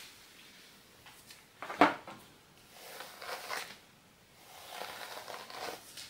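Rustling of long hair and sweatshirt fabric as hands run through and smooth the hair, in two longer swishes. About two seconds in there is one short sharp knock, the loudest sound.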